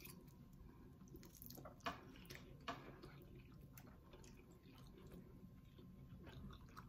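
Near silence with faint chewing and slurping of noodles, a few soft short mouth sounds now and then.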